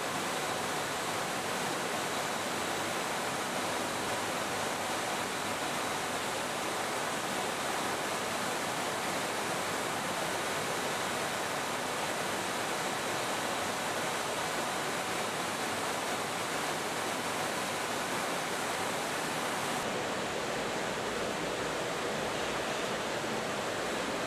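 A steady, even rushing hiss of noise, unchanging in loudness.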